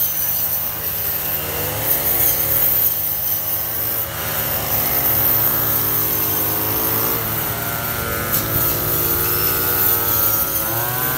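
Several petrol brush cutters running at once as they cut grass. Their engine pitches waver up and down continuously.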